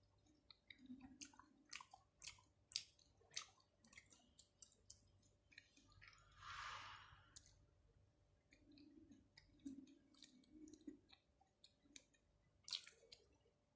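Close-miked chewing of raw shrimp and octopus: many sharp, wet, sticky mouth clicks with soft chewing thuds, and a brief hiss about six seconds in.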